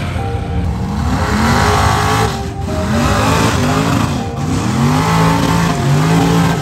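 High-horsepower lifted mud trucks' engines revving hard as they rip through the mud pit. The pitch climbs and drops again and again as the throttle is worked.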